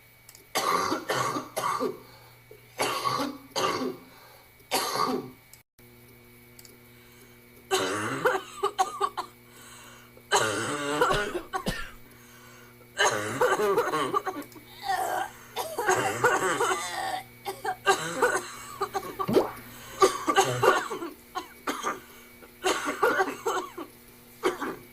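A person coughing over and over in fits of short bursts, with throat clearing between them; the cough is the 'mold cough' the sketch is about.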